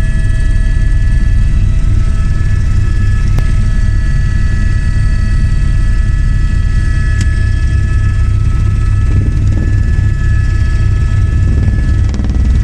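Helicopter in flight, heard from inside the cabin: a loud, steady low drone with several constant high whining tones over it.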